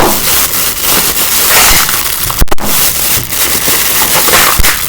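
Loud, dense crinkling and crackling of plastic packaging being handled and pulled open.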